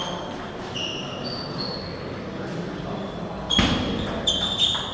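Table tennis ball being struck and bouncing in a rally: sharp clicks with a brief ringing ping after each. There are a few faint hits early on, then a quick series of louder hits from about three and a half seconds in, over the murmur of a sports hall.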